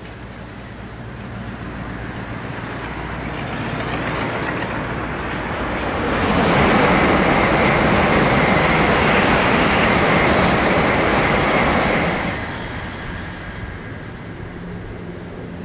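A Tokaido Shinkansen high-speed train passing at speed. A rushing noise builds for about six seconds, stays loud for about six more while the train goes by, then falls away sharply.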